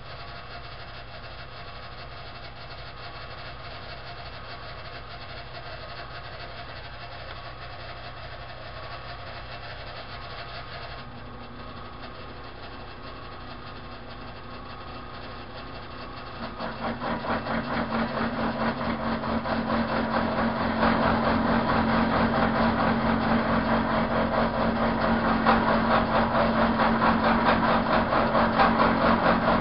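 Manual milling machine running steadily, then, about halfway through, its cutter bites into the steel rifle barrel while milling a flute, and the sound grows much louder with a fast, rough pulsing as the metal is cut.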